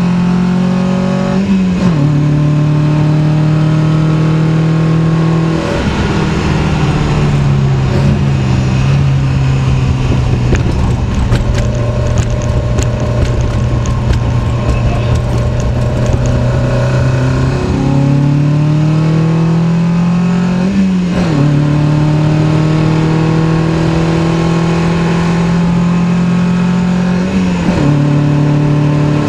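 In-cabin sound of a 1972 BMW 2002 tii's four-cylinder engine, rebuilt with twin Weber 45 DCOE carburettors and a race cam, pulling hard on track. Its pitch climbs and drops sharply at each upshift, about four times, with a long stretch of steady running in the middle.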